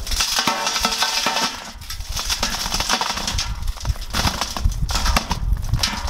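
Brittle aircrete being broken and crumbled by hand into a steel bucket: gritty crunching with a rattle of small clicks as fragments land on the metal.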